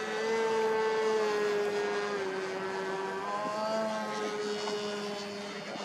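Electric motor and propeller whine of an RC VTOL quadplane in forward flight overhead. A steady tone sags a little in pitch midway, is loudest about a second in and fades toward the end.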